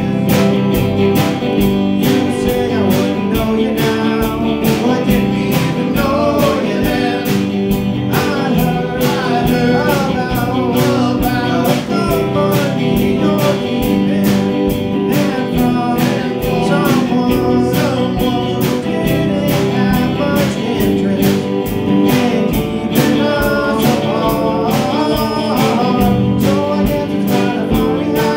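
Live amplified band playing a song: a man singing over electric guitar, bass guitar and a drum kit keeping a steady beat.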